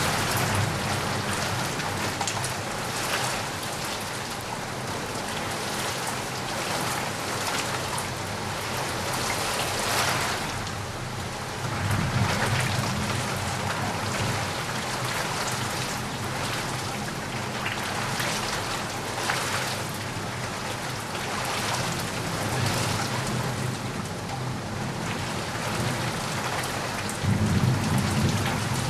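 Steady heavy rain hissing and pattering, with low rumbles of thunder at the start, about twelve seconds in, and again near the end.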